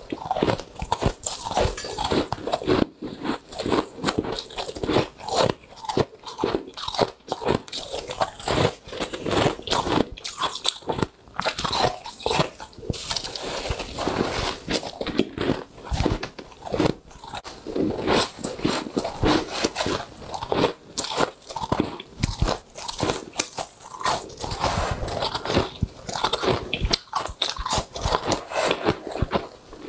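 Close-miked chewing and crunching of soft, powdery freezer frost: a fast, irregular run of crisp crunches.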